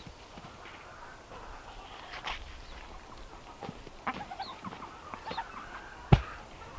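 Chickens clucking in short scattered calls, with one sharp knock about six seconds in.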